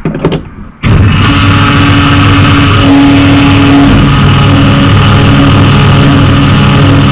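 A loud, steady, engine-like drone with several held tones starts suddenly about a second in, set off as the ceremonial inauguration lever is turned.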